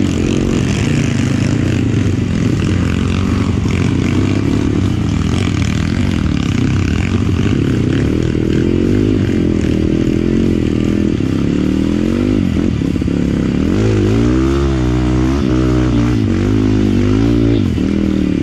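Dirt bike engine running under load on a muddy, rutted trail, its pitch rising and falling again and again as the throttle is worked, most strongly in the second half.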